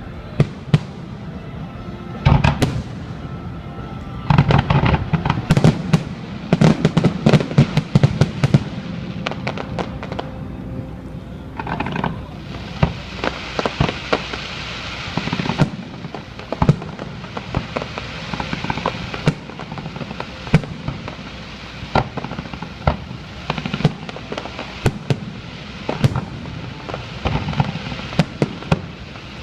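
Fireworks display with aerial shells bursting one after another in bangs and booms. A dense volley of bursts comes a few seconds in, and a stretch of crackling follows around the middle.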